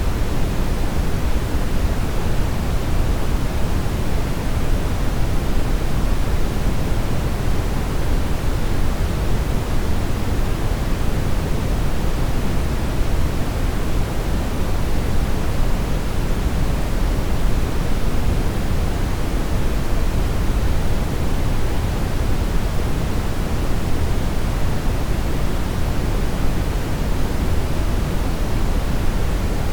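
TV static noise: the steady hiss of a television with no signal, fuller in the low end than the top, unchanging throughout.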